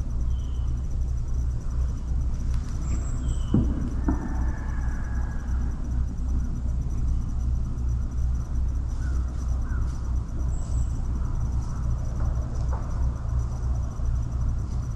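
Woodland ambience dominated by a steady low rumble, with a few faint, short high chirps scattered through it and a couple of soft clicks about three and a half and four seconds in.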